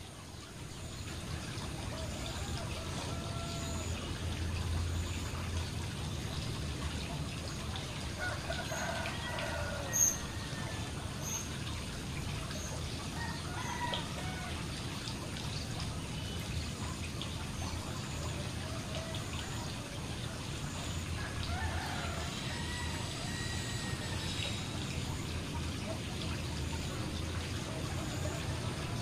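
Steady splashing of water falling from a fountain into a koi pond. A few short bird calls come through in the background, and a single sharp, high click stands out about a third of the way in.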